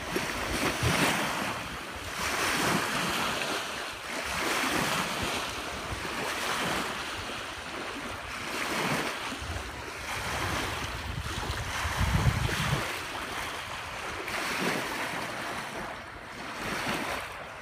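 Small lake waves washing onto a sandy shore, the wash rising and falling every couple of seconds, with wind buffeting the microphone in low rumbles, loudest about twelve seconds in.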